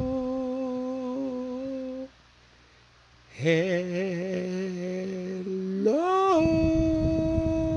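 A voice holding long sung notes: a swoop up into a note held for about two seconds, then after a short break a lower, wavering note, and about six seconds in a swoop up to a higher note held steadily.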